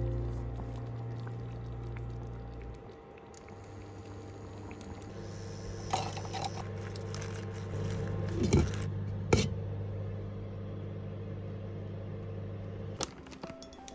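A stew being stirred in a stainless steel pot: a metal spoon clinks and scrapes against the pot several times, loudest a little past halfway. Under it runs a steady low hum that stops near the end.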